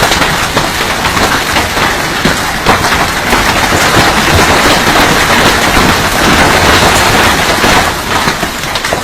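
Large hailstones pelting down in a heavy hailstorm: a dense, loud clatter of countless hard impacts, easing a little near the end.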